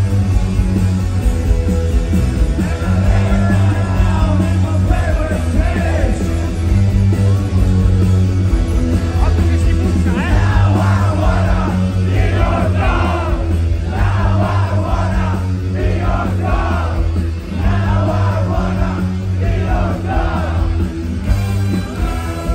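Live rock band with a chamber orchestra playing, over a steady bass line. A male lead vocal comes in strongly about ten seconds in.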